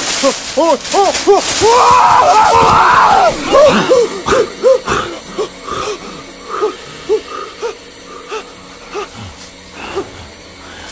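A man's terrified vocal cries: short rising-and-falling yelps about three a second, swelling into a loud scream about two seconds in, then falling back to quicker, fainter gasping cries.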